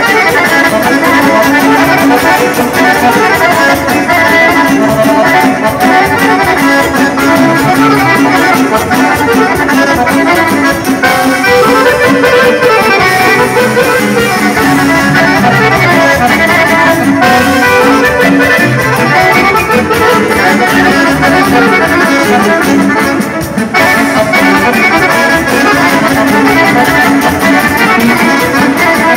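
Two accordions playing a tune together, live and loud, with other band instruments behind them.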